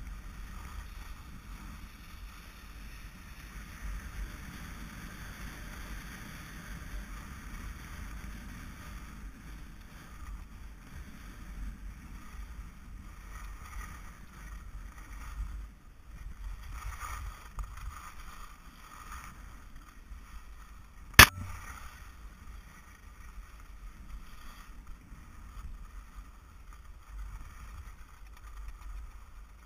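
Skis sliding over groomed snow, an even swishing rush with wind on the helmet camera's microphone. One sharp knock about two-thirds of the way through.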